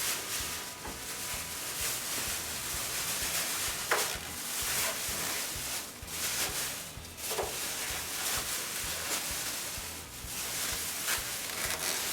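Hissing spray in stretches of a few seconds, dipping briefly twice, with three short falling squeaks.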